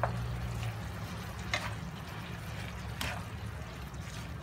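Spatula stirring chicken and basil leaves in a nonstick frying pan, knocking sharply against the pan three times about a second and a half apart, over a steady sizzle.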